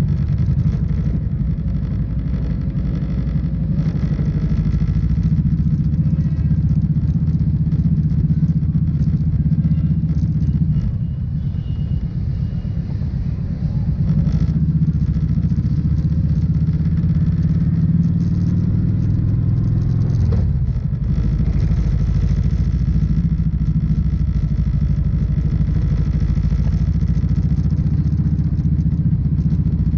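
Kawasaki Vulcan motorcycle engine running steadily under way. Its note drops briefly about eleven seconds in and picks up again a few seconds later.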